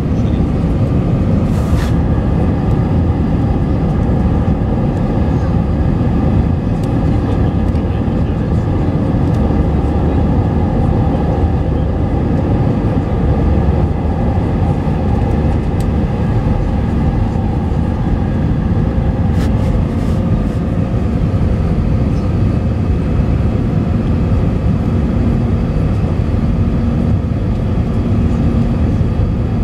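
Steady roar of an airliner's wing-mounted turbofan engines and rushing airflow, heard inside the passenger cabin in flight: a deep, even rumble with faint steady engine tones above it.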